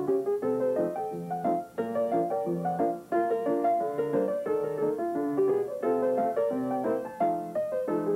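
Background piano music, a quick flowing run of notes, briefly dipping about two and three seconds in.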